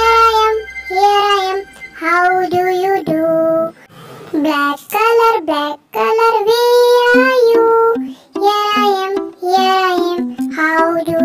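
A child singing a simple nursery song in short phrases with short pauses between them, over light backing music.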